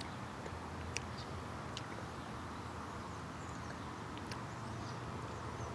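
Steady low background rumble and hiss with a few faint sharp ticks and short high chirps; no car horn sounds.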